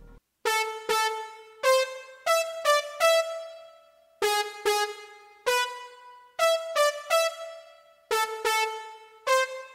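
Yamaha Genos keyboard playing a short ornamental melody figure in a piano-like voice, single notes picked out one at a time and slowly. The same phrase of about six notes comes three times, each note struck and then fading.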